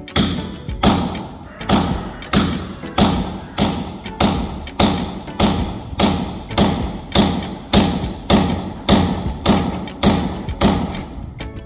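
Hammer striking in a steady rhythm, about three blows every two seconds, each a sharp knock with a short tail.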